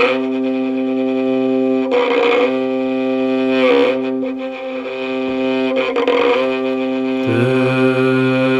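Slow folk air on fiddle: long held notes over a steady low drone, moving to a new note every two seconds or so. The low note steps down near the end.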